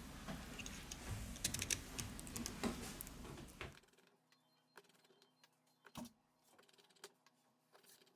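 Quick, light clicks and taps of small tools and plastic phone parts being handled during phone reassembly, over a steady hiss. About four seconds in the hiss cuts out, leaving only a few faint clicks.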